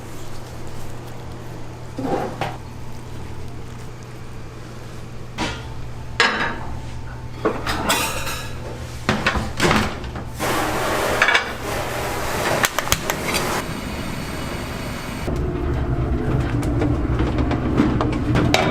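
Kitchen clatter: dishes and metal utensils knocking and rattling, with a busy stretch in the middle, over a steady low hum.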